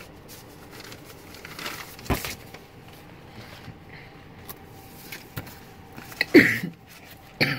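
Paper and card being handled and shuffled on a table, with quiet rustling and one sharp knock about two seconds in. Near the end come two short throat noises from the person handling them, which he excuses himself for just afterwards.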